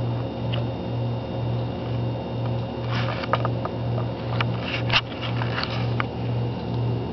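Refrigerator running with a low hum that pulses about one and a half times a second, with fainter steady high whines above it. A few light clicks and rustles come in the middle.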